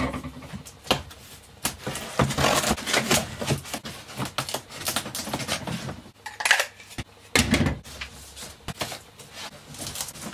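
Knife cutting through packing tape on a cardboard box, then the cardboard flaps being pulled open: a run of scratchy scrapes, rustles and sharp knocks.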